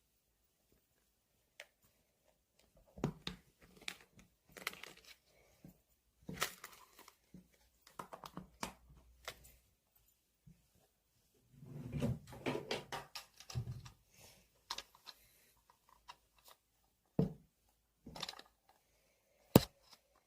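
Irregular handling noises: rustling and crinkling with soft thumps and clicks, busiest around the middle, and one sharp click near the end.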